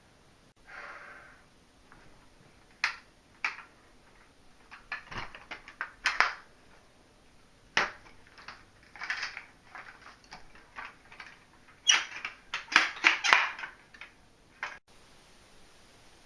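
Irregular knocks, clatters and short rustling scrapes of objects being handled and set down, with a quick run of several louder knocks near the end.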